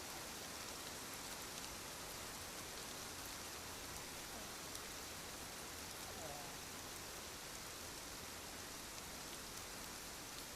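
Steady, even background hiss, like rain, with no snore heard; one faint, brief pitched sound about six seconds in.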